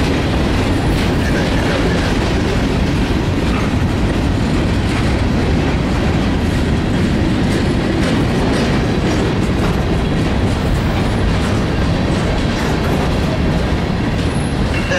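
Freight train's covered hoppers and tank cars rolling past on the track: a steady heavy rumble with scattered clicks of wheels on the rails.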